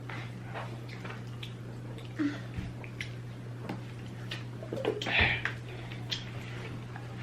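Wet chewing and lip smacking while eating: a string of soft mouth clicks, with a louder mouth sound about five seconds in, over a steady low hum.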